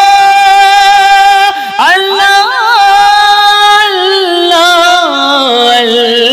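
A man singing a naat solo, holding long drawn-out notes with wavering melismatic runs. There is a short breath about two seconds in, and the melody steps down in pitch near the end.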